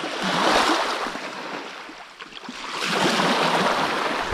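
Shallow seawater washing at the shoreline, a soft hiss that swells, dies down about two seconds in, then swells again.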